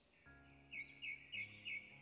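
Soft background music with sustained notes coming in just after the start, over a run of four short bird chirps at about three a second.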